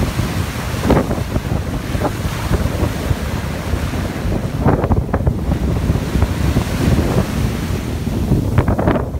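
Wind buffeting the microphone as a low rumble, over small waves washing onto a sandy shore.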